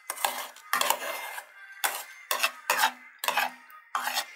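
Metal spoon stirring a wet grain mixture in a ceramic bowl, scraping against the bowl in repeated strokes about two a second.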